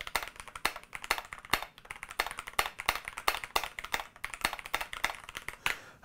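Hunt-and-peck typing on a Keychron K10 Pro mechanical keyboard: a quick, irregular run of key clicks, still a bit noisy.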